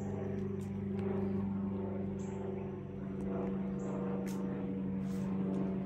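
A steady low mechanical hum, unchanging in pitch, with a few faint clicks scattered through it.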